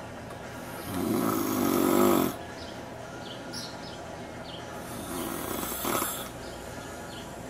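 A man snoring in his sleep: two snores, a long loud one about a second in and a weaker one around five seconds in.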